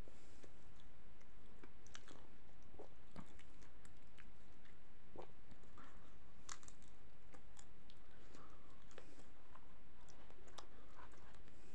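Close-up chewing and biting of a person eating lahmacun, with scattered small clicks and crackles as the flatbread is torn and bitten, over a steady low hum.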